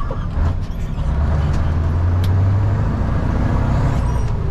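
Truck's V8 engine running under load on the road: a steady low drone, broken briefly about half a second in before it picks up again.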